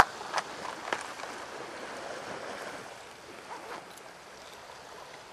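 Calm sea washing gently against rocks, a steady hiss of water, with three sharp clicks in the first second.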